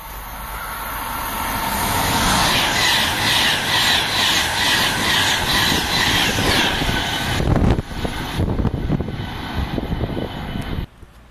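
High-speed express passenger train approaching and passing close at speed. The rush of air and wheels grows over the first couple of seconds, then runs loud with a steady rhythmic clatter as the coaches go by, and cuts off suddenly near the end.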